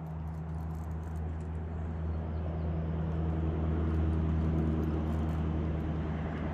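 A steady low engine hum at an unchanging pitch, swelling to its loudest about four seconds in and then easing off.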